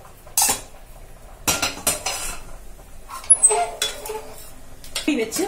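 A steel spoon knocking and scraping against stainless steel pans as a cooked brinjal and tomato mixture is tipped from a kadai into a pressure cooker and stirred: several separate clanks, with a sharp ringing clink about three seconds in.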